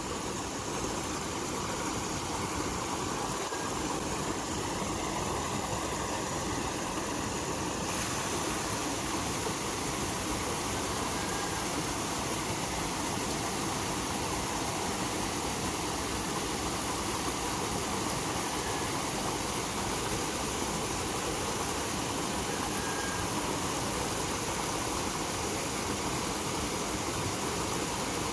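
A small waterfall rushing steadily, an even hiss of falling water.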